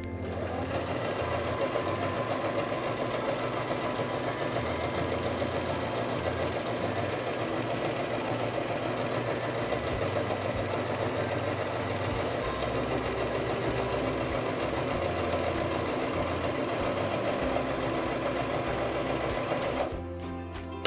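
Domestic electric sewing machine running steadily, sewing a straight running stitch at stitch-length setting 8 under pedal control. It stops shortly before the end.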